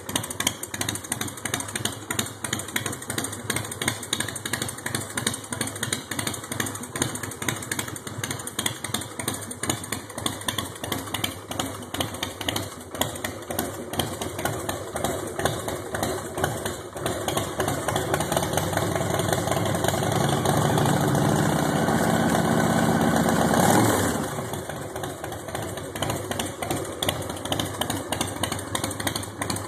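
Big Dog chopper's V-twin engine idling with an uneven pulse. Past the middle it runs faster and louder for a few seconds, then drops back abruptly to idle.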